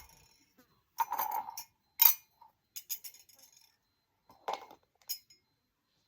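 A spoon clinking and tapping against a glass while lime juice and honey are mixed: a handful of short, light clinks spread over a few seconds, the sharpest about two seconds in.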